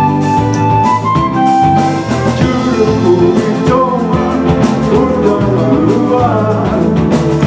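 A band playing an instrumental passage between sung verses, with a bass line and drums under a lead melody that comes in about two seconds in.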